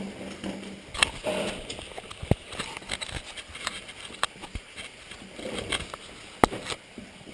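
Caver climbing up through a rock passage: scraping and rustling of clothing and gear against rock, with several sharp knocks, the loudest about six and a half seconds in.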